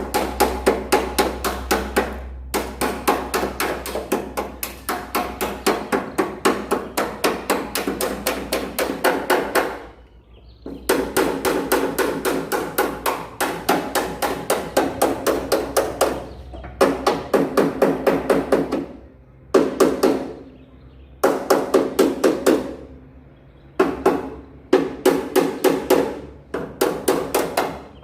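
Hammer rapidly beating sheet metal, about five ringing blows a second in runs of a few seconds with short pauses: straightening a truck's crash-damaged bodywork.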